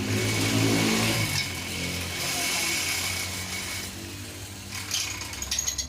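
Electric motor taken from a water pump running, with a low hum and a steady high whine. Near the end come quick metallic clicks and rattles.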